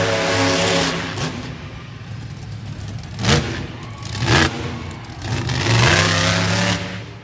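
Monster truck engine revving hard, easing off, then two loud thumps about three and four seconds in, followed by another hard rev near the end.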